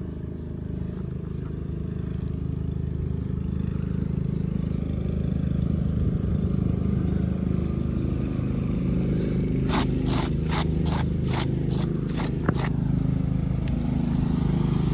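Asphalt shingle being lifted and bent back up off the roof deck, scraping, with a quick run of about eight sharp crackles in the second half as it bends. A steady low rumble runs underneath.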